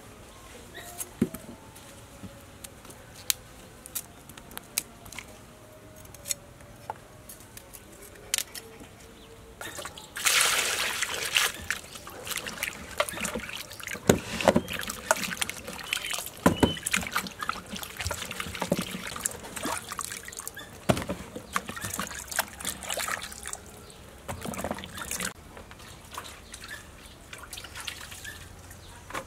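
Water splashing and sloshing in a steel basin as cut Romanesco cauliflower and other vegetables are washed by hand. The first ten seconds hold only scattered drips and small clicks. About ten seconds in comes a brief rush of water, then repeated splashes as the vegetables are swished about.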